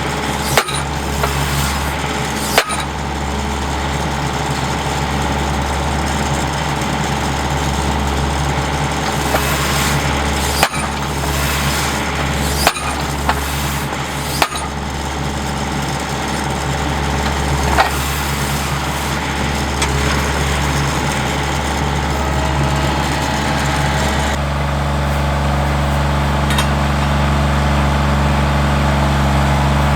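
An engine running steadily, with a nail gun firing nails into oak fence boards: about half a dozen sharp shots a few seconds apart over the first two-thirds. The engine note shifts a little past two-thirds of the way through.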